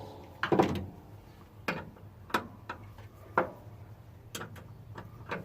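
About ten short, sharp clicks and taps at uneven spacing, a few coming in quick runs: hand tools working a nut on a truck's starter solenoid terminal.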